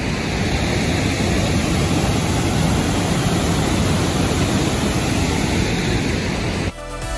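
Steady rush of Burney Falls and the white-water creek below it. Music cuts in near the end.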